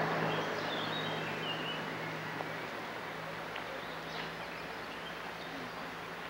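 Outdoor ambience: a steady rushing background noise with a low hum, and a few short bird chirps near the start and again about four seconds in.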